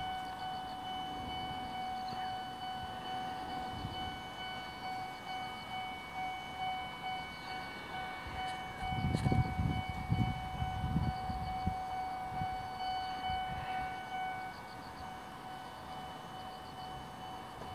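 Japanese railway level-crossing warning bell ringing in a quick, steady repeating pulse, the signal that a train is approaching; it stops after about fourteen seconds. A low rumble swells about halfway through.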